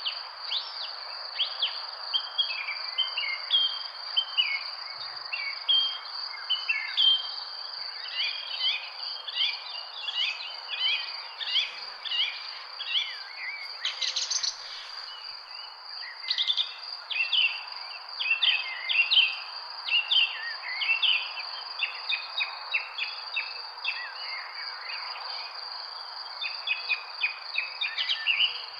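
Many birds chirping and singing in quick, overlapping short notes, over a steady high-pitched insect trill, likely crickets, and a constant low background hiss. A brief louder burst of chirping comes about halfway through.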